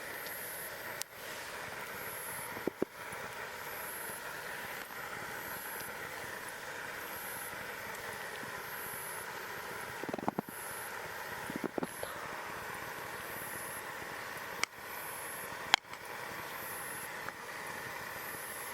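Campfire crackling with a steady hiss and a few sharp pops, plus a cluster of soft knocks around the middle. A faint short high chirp repeats about once a second.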